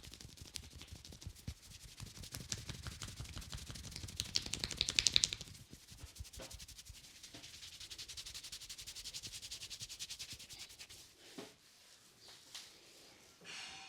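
Hands rubbing and tapping rapidly on the scalp and hair in a head massage: a fast, even run of soft strokes, loudest about five seconds in, thinning to a few separate taps near the end.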